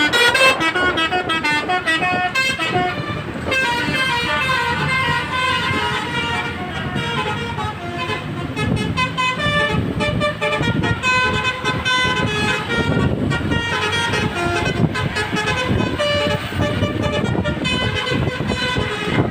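Indonesian musical bus horns, a 'telolet' horn and a 'basuri' horn, playing quick melodic tunes of short stepped notes. A vehicle engine runs underneath in the second half.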